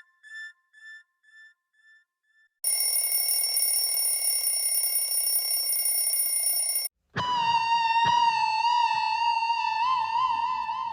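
A sequence of electronic tones. First a run of short beeps, a bit over two a second, that fade away. Then a steady buzzing tone with high whistles that cuts off suddenly after about four seconds, and after a brief gap a wavering tone with vibrato.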